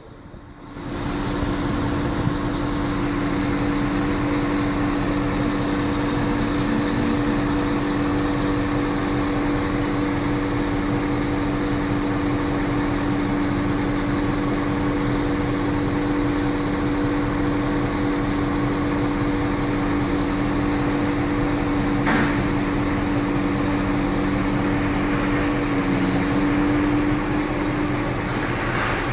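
Construction-site machinery running steadily: a constant engine-like drone with a fixed hum over a fast, even low throb. The hum shifts pitch briefly near the end.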